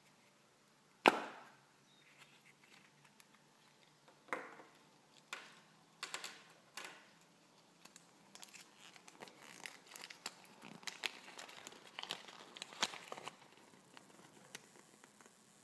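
A yellow plastic Kinder Surprise capsule snapping open with one sharp click about a second in, followed by a few lighter plastic clicks. Then the thin paper leaflet wrapped around the toy is unfolded, crinkling for several seconds.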